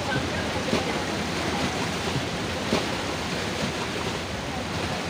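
Cyclone storm-surge seawater rushing and churning through a flooded coastal village, a steady wash of water noise with a couple of brief louder surges.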